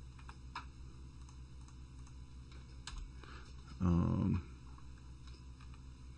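Faint, scattered computer mouse clicks over a steady low hum, as line nodes are placed on a drawing. About four seconds in comes a louder, brief wordless murmur of voice lasting about half a second.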